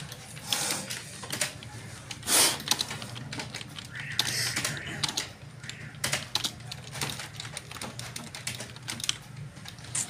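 Computer keyboard keys struck one at a time at a slow, uneven beginner's pace, over a steady low hum. A brief louder noise comes about two and a half seconds in.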